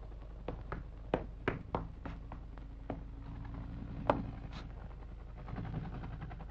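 Faint crackle and scattered irregular clicks over a steady low hum, the noise of an old, worn film soundtrack, with no distinct sound effect standing out.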